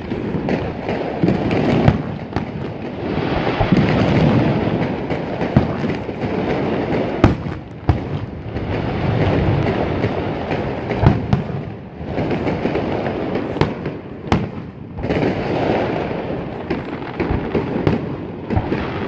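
Aerial fireworks display: repeated sharp shell bursts over a dense, continuous wash of booms and crackle that swells and fades every few seconds.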